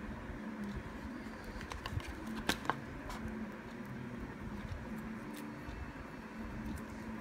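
Paper and cardboard being handled as the iPhone box's cardboard insert and paper documentation pack are taken out and opened. It sounds as soft rustling and scraping, with two sharp clicks close together about two and a half seconds in.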